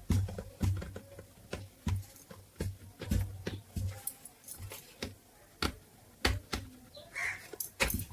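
Irregular sharp clicks and knocks, about one or two a second, several with a low thud beneath them.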